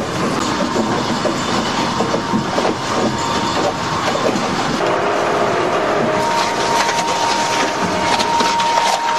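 Crusher machine crunching and grinding material: a continuous loud crackling and rattling clatter, with a steady high whine joining in about five seconds in.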